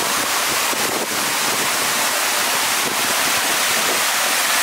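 River water rushing steadily as it spills over a small concrete weir and pours down the rocks below it.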